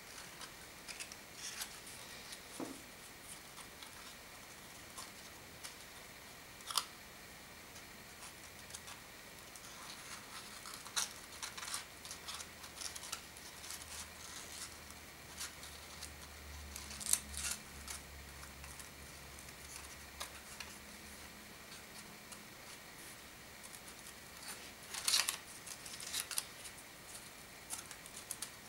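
Sheets of origami paper rustling and crackling as folded kusudama units are handled and slotted together by hand: scattered soft rustles with a few sharper crackles, the loudest in the second half.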